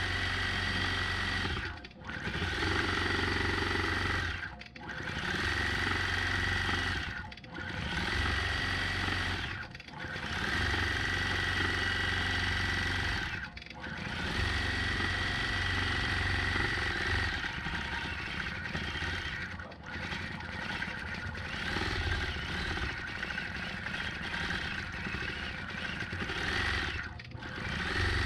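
Gammill Statler longarm quilting machine stitching an all-over pattern, its needle running fast with a steady whine, broken by brief pauses every few seconds.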